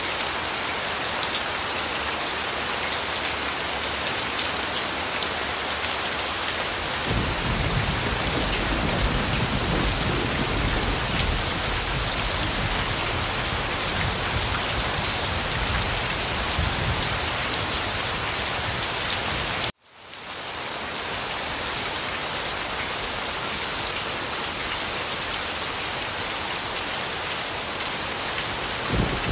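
Steady rain falling on a surface. A low rumble joins about a quarter of the way in and lasts several seconds. About two-thirds through, the sound cuts out abruptly for a moment and then fades back in.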